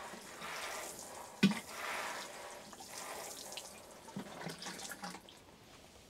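Water spraying from a watering can's rose onto a module tray of compost, a steady pattering hiss that thins out near the end. A single sharp knock about a second and a half in.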